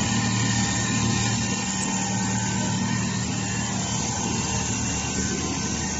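Richpeace computerised precision sewing machine running, its gantry-mounted sewing head stitching across a large sheet of quilt fabric. The sound is a steady mechanical running noise with a low, even hum beneath it.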